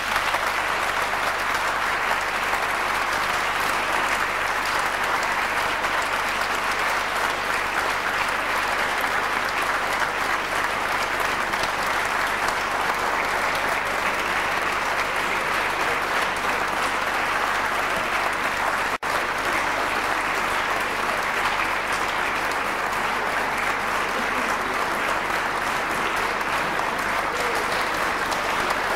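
Audience applauding steadily, a dense even clapping that starts the moment the choir's song ends, with a split-second dropout about two-thirds of the way through.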